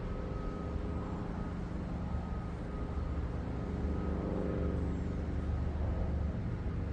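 A steady, low engine drone at a constant pitch, growing slightly louder over the seconds.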